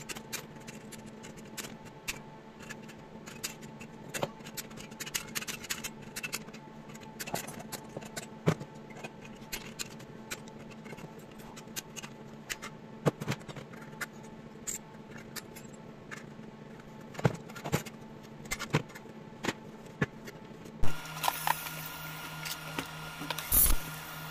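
Small metal clicks and taps of a cast metal model tank's parts being handled and worked with pliers, over a steady low hum. About three seconds before the end a small motor, the rotary tool, starts and runs steadily.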